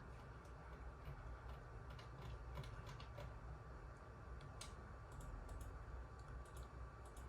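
Faint, irregular clicks of a computer mouse being clicked and scrolled, over a low steady room hum.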